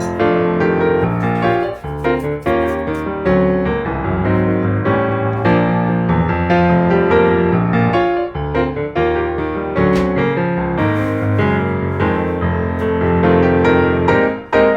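Background music led by piano, a steady run of notes and chords.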